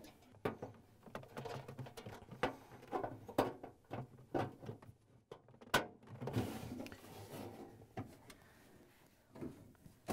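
Scattered light clicks and knocks of a refrigerator's plastic freezer back panel being handled by gloved hands, with a stretch of rubbing and scraping about six seconds in.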